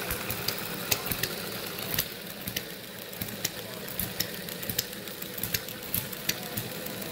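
Miniature model gas engine running, its firing strokes heard as sharp pops about two or three a second at an uneven rate, over a steady mechanical hum.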